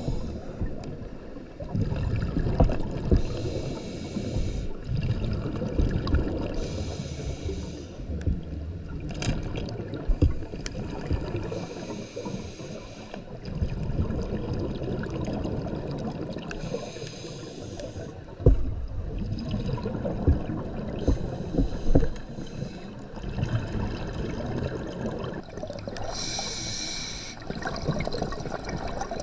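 Scuba regulator breathing underwater: a hissing inhalation through the regulator every few seconds, with the rumbling gurgle of exhaled bubbles in between.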